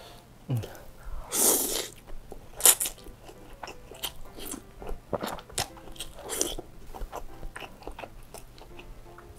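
Close-miked eating of chili-oil egg noodles: the noodles are slurped in with a hissing suck about a second in and again a few times later, between wet chewing clicks and lip smacks.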